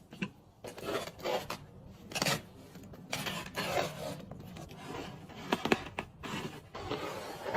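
Irregular rubbing and scraping strokes, a series of short uneven scrubbing sounds.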